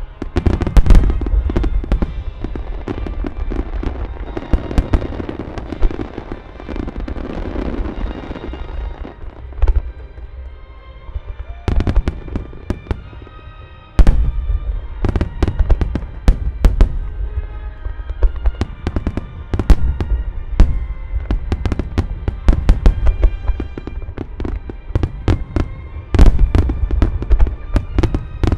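Large aerial fireworks shells launching and bursting in rapid volleys, with deep booms and sharp cracks, while music plays along. A dense run of bursts thins out for a few seconds, then a very loud burst about halfway through sets off another dense run.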